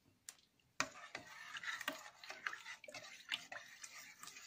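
A metal spoon stirring mayonnaise into a stainless-steel pot of cold water and chopped vegetables: the liquid sloshes and the spoon knocks and scrapes against the pot in many small clicks, starting about a second in.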